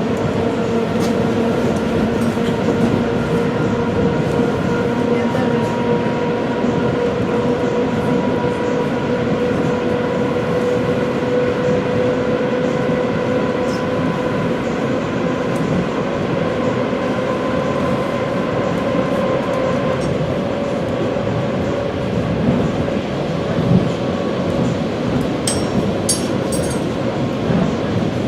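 ED4M electric multiple unit running, heard from aboard: a steady rumble of wheels on track with a held whine from the drive. A few sharp clicks come near the end.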